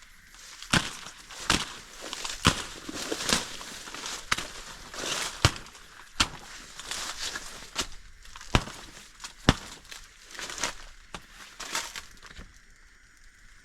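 Slow footsteps crunching through dry leaves and brush, a sharp crackle about once a second with rustling between.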